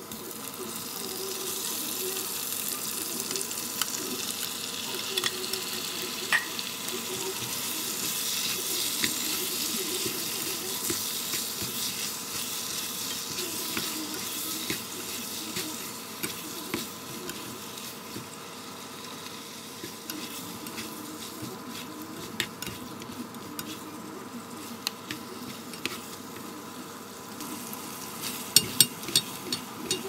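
Raw shrimp, squid and shellfish sizzling in a nonstick frying pan of fried red curry paste while being stir-fried with a silicone spatula. The sizzle swells just after the seafood goes in and eases off in the second half, with sharp scraping clicks of the spatula near the end.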